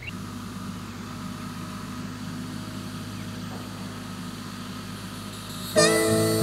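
Distant Kubota tractor's diesel engine running steadily as it drives along. Guitar music comes in near the end.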